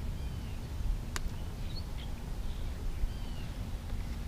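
Faint birds chirping in short scattered calls over a steady low outdoor rumble, with a sharp click about a second in as the angler handles the fish and lure.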